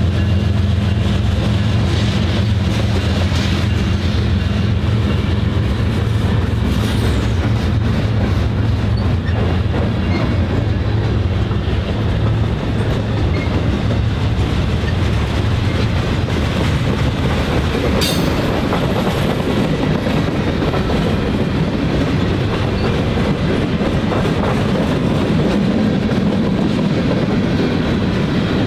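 Freight train of covered hopper cars rolling past close by: a steady, loud rumble of wheels on the rails. A low hum under it fades out about halfway through, and there is a single sharp knock about eighteen seconds in.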